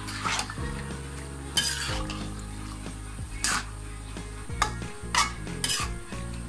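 A spatula stirring and turning Malabar spinach and hilsa fish head in a frying pan, with about six separate scraping strokes against the pan over the sizzle of the cooking greens.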